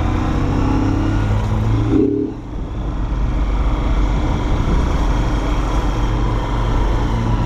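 Motorcycle engine running while the bike rides along, with the engine note dropping briefly about two seconds in and then picking up again.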